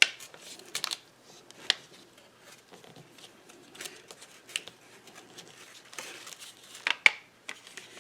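Sharp taps and soft rustling from inking a cling stamp on a distress ink pad and pressing it onto plastic packaging, with a few clicks near the start and another pair about seven seconds in.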